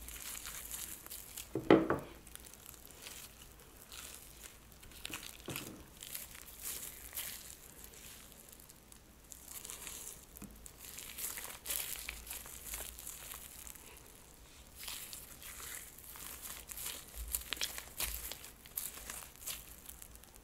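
Plastic piping bag crinkling as it is handled, in irregular crackly bursts, with one louder short sound about two seconds in.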